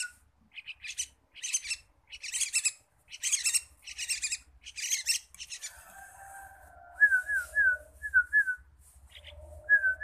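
Young yellow-vented bulbuls calling: a quick run of harsh, buzzy chirps through the first five seconds, followed by a few short down-slurred whistled notes.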